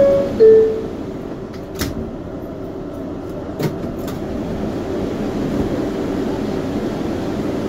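R142A subway car's door-closing chime: two tones, a higher note then a lower, louder one. Then come two brief knocks about two and three and a half seconds in, over the car's steady ventilation hum.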